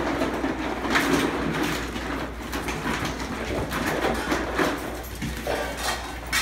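Terrier puppies playing: irregular scuffling and scraping with scattered clicks and knocks.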